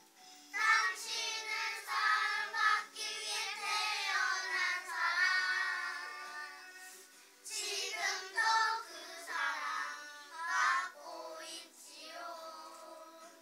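A group of young children singing a graduation song in unison over instrumental accompaniment. The singing comes in about half a second in, with short breaks between phrases.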